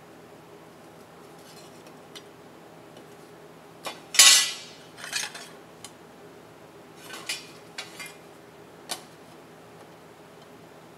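Steel bracket pieces being shifted and set down on a steel welding table: a few metal clinks and knocks with a short scrape, the loudest about four seconds in, then lighter taps between about seven and nine seconds in.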